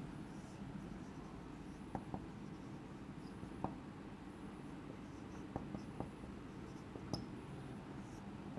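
Marker pen writing on a whiteboard: faint squeaks of the strokes and several sharp taps as the tip meets the board, over a steady low room hum.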